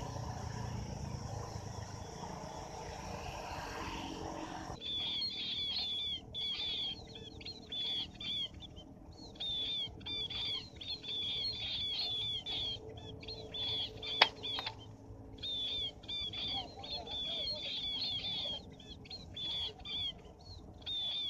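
A low steady rushing noise for the first few seconds, then munias (chim ri) chirping: high thin calls repeated in quick clusters with short pauses. About fourteen seconds in there is one sharp click.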